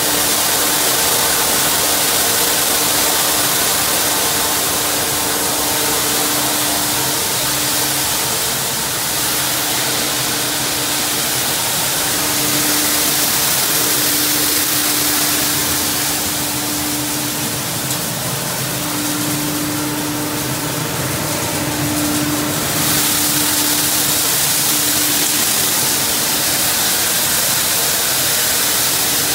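Plastic washing line machinery running: steady machine noise with a strong hiss and a hum that fades in and out.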